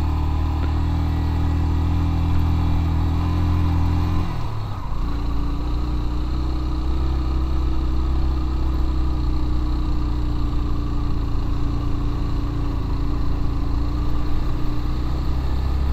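Motorcycle engine running steadily under load while climbing a steep grade. About four seconds in the note dips briefly, then settles at a new steady pitch.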